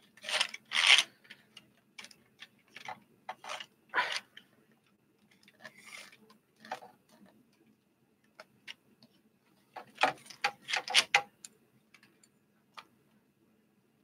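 Handling noise from a microphone on a boom stand and the camera being moved and set in place: irregular clicks, knocks and rubbing. The loudest knocks come in the first second and again about ten seconds in.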